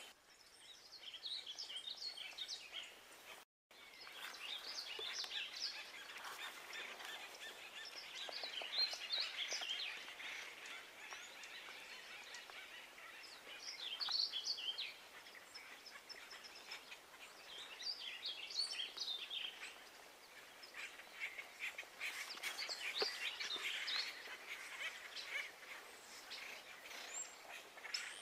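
Small birds chirping and twittering, many short high calls scattered throughout, over faint outdoor background noise; the sound cuts out completely for a moment about three and a half seconds in.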